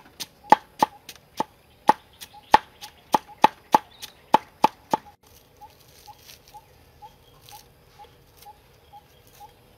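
Cleaver chopping through a pile of sliced lemongrass and garlic on a wooden board: sharp chops about three a second. About five seconds in the chopping stops, leaving only faint soft ticks.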